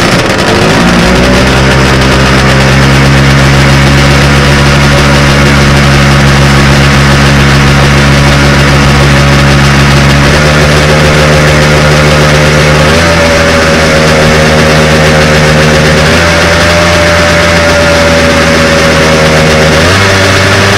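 Vintage snowmobile's two-stroke engine with triple carburetors, hood off, idling loudly just after starting. Its speed shifts slightly a few times as the throttle is touched.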